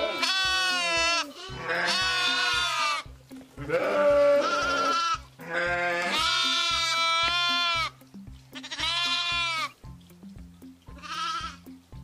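Sheep bleating: about six long, drawn-out bleats, the last one short and near the end, over background music with a steady beat.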